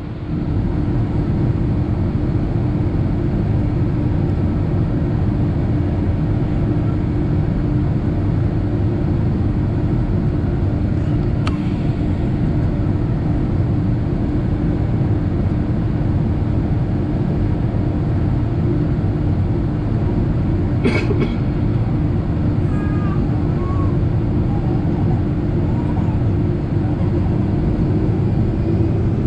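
Steady cabin noise inside a Boeing 757-200 with its Rolls-Royce RB211 engines running at low power: a loud rumble with a constant hum, holding level with no spool-up. There are two brief clicks, about 11 and 21 seconds in.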